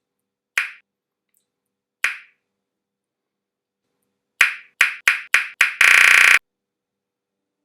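A series of sharp snaps: two single ones a second and a half apart, then a quick run of five, ending in a loud buzzing burst about half a second long.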